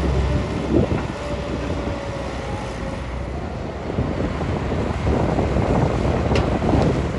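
Diesel engine of a CAT 320 hydraulic excavator running steadily, with wind buffeting the microphone and a sharp knock about a second in.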